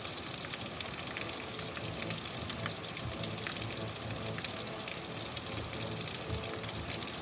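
Steady rain: an even hiss of many small drops ticking, with no break or change in strength.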